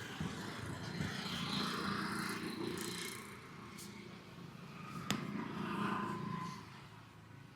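Roadside traffic noise, with one sharp click about five seconds in; the sound fades somewhat near the end.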